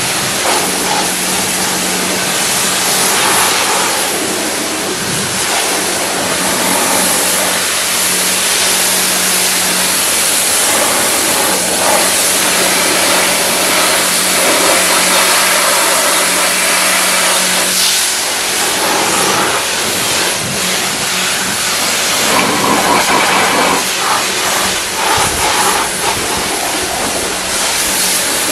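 Electric pressure washer running: the steady hiss of the high-pressure water jet blasting mud off a car's bodywork over the pump motor's low hum. The hum breaks off a few times.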